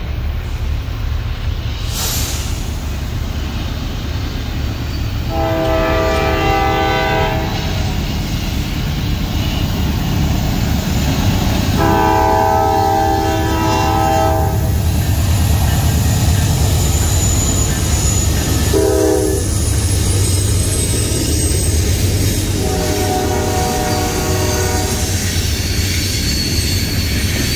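Norfolk Southern train's locomotive horn sounding the grade-crossing signal: two long blasts, a short one, then a long one, each a multi-note chord. A steady low rumble runs beneath and grows louder about five seconds in.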